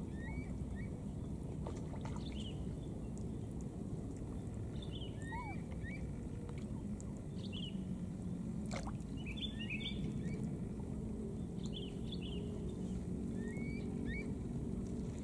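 Outdoor ambience with a steady low rumble, and short high chirping calls from small animals scattered every second or two, sometimes in quick clusters.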